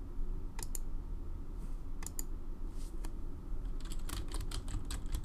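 A few separate clicks, then rapid typing on a computer keyboard starting a little under four seconds in.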